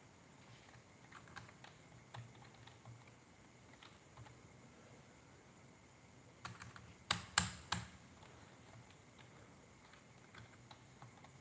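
Typing on an external computer keyboard: scattered, faint keystrokes, with a short run of louder key strikes a little past the middle.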